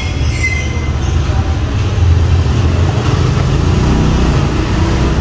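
Loud, steady low rumble with an even hiss over it.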